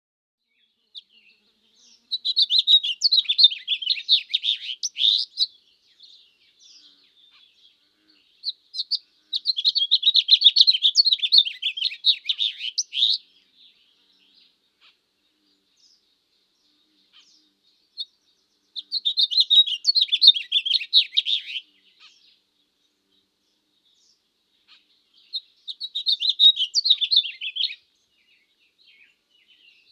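Goldfinch singing: four bouts of rapid, jumbled twittering song, each a few seconds long, with short pauses between them.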